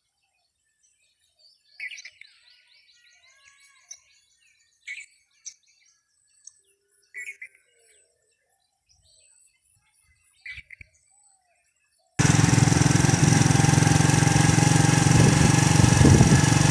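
Small birds chirping and calling now and then, one short rapid trill among them, over near quiet. About twelve seconds in, this gives way abruptly to a motorcycle being ridden: a steady engine hum under loud wind noise.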